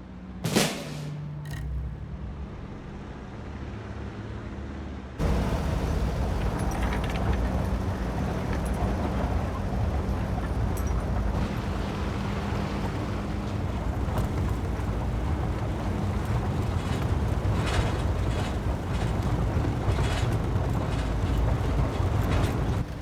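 Film soundtrack: music, with a sharp hit about half a second in. About five seconds in, a loud, steady rumbling wash of noise starts suddenly and carries on.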